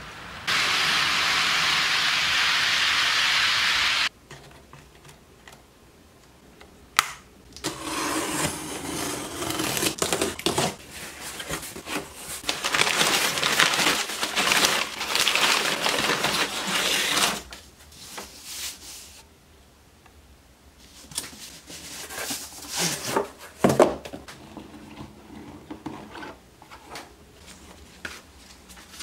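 Crumpled packing paper rustling and crinkling as it is pulled out of a cardboard shipping box, for about ten seconds through the middle. Before it there is a steady hiss of about three and a half seconds. Later come lighter handling sounds of a cardboard product box being opened, with one sharp knock.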